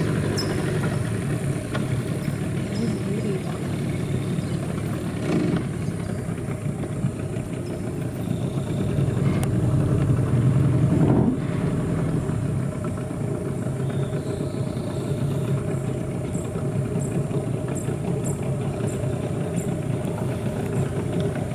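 A boat's motor running steadily, with a low hum that holds all the way through.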